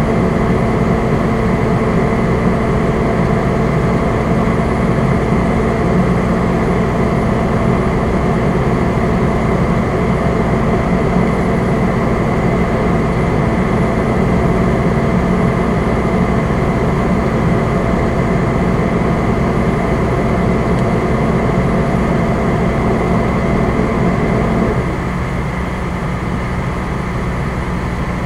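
Fire engine's engine and road noise heard from the cab at road speed: a steady drone with a few held tones. About 25 seconds in, it gets a little quieter and the lower tones drop in pitch, as the engine eases off.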